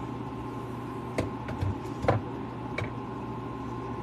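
Light clicks and knocks of product packaging and small bottles being handled on a table, about four short taps over a steady background hum.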